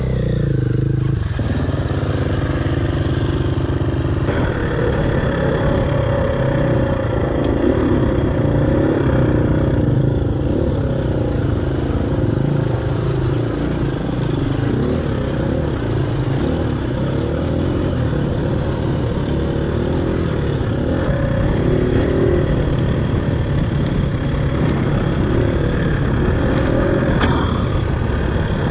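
Dirt bike engine running while riding over a rough trail, its pitch rising and falling as the throttle opens and closes.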